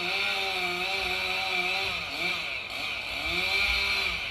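Small engine running, its pitch rising and falling in repeated revs over a steady rasping hiss, like a chainsaw or lawnmower.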